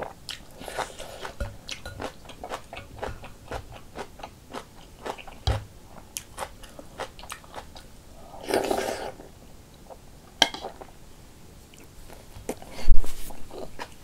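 Close-up eating sounds of a person chewing rice cake soup, with wet chewing and many small mouth clicks. A noisy slurp from the spoon comes a little past halfway, and a louder burst of noise comes near the end.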